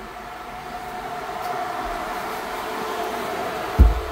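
Rebuilt truck engine with a COMP Cams Thumpr hydraulic roller cam running, with its radiator fans blowing hard: a steady hum and rush that grows louder over the first couple of seconds. A short low thump comes near the end.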